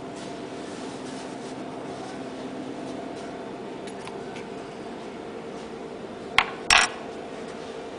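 Steady hum of running lab equipment with a few fixed tones. About six and a half seconds in comes a sharp click, then a brief, louder clatter like metal or glass being handled.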